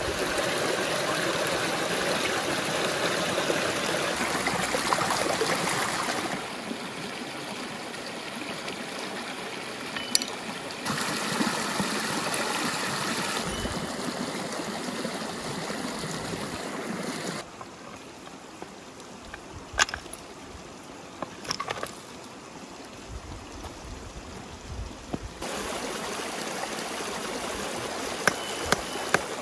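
Shallow stream running over rocks, its rush stepping louder and quieter at several points, with a few sharp knocks here and there.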